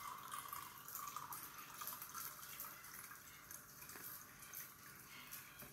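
Kitchen tap running faintly, filling a mug with water.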